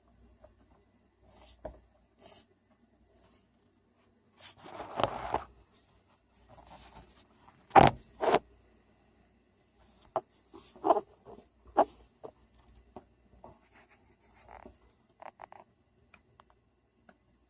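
An animal sniffling in irregular short bursts of nasal noise, with the two loudest sharp snorts close together about eight seconds in.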